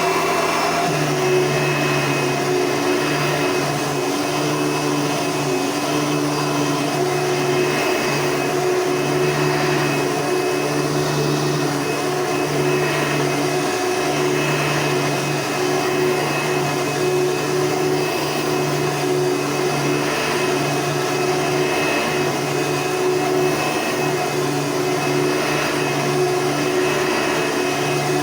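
Hoover Deluxe top-fill upright vacuum cleaner running steadily: a constant motor hum with a higher whine.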